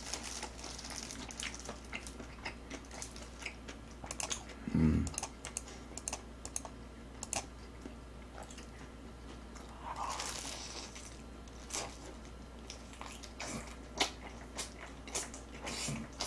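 Close-up chewing and crunching of fried chicken drumsticks: a steady stream of small crisp clicks and mouth smacks, with a brief low hum from the eater about five seconds in.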